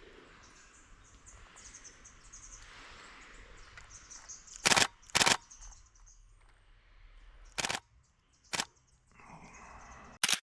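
Canon 7D Mark II DSLR shutter and mirror firing in five loud, short bursts, two close together about halfway through and the others spread over the following seconds, against faint birds chirping.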